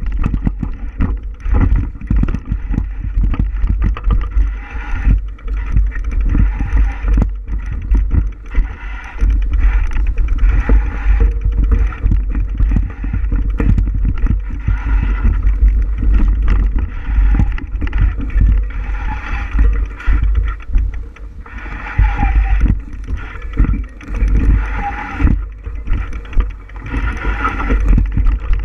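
Bicycle riding along a rough trail: constant rumble and wind buffeting on the microphone, with frequent small knocks and rattles from the bike jolting over the surface.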